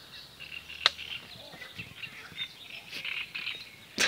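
Frogs and birds calling from the reeds around a pond at dawn, a steady run of short chirps and croaks. A sharp click sounds about a second in, and a knock comes at the very end.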